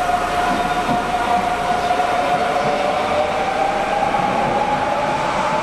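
Kintetsu Urban Liner Next limited express train pulling away from an underground platform: a steady running rumble with a clear whine that rises slowly in pitch as the train gathers speed, echoing in the subway station.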